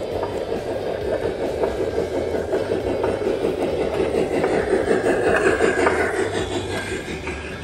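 PIKO G-scale model steam tank locomotive and passenger coaches rolling past on the track: a steady rumble of wheels and drive gearing with light clicks over the rail joints. It grows louder as the locomotive passes about five to six seconds in, with a gear whine that falls in pitch.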